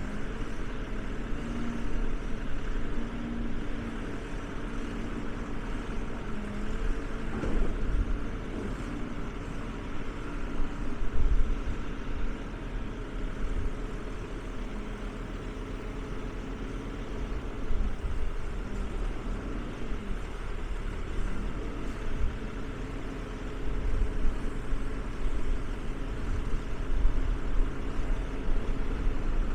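Engine of an E-Z Crusher log baler running, its pitch and loudness rising and falling with load every few seconds, with one brief swell in pitch about seven seconds in.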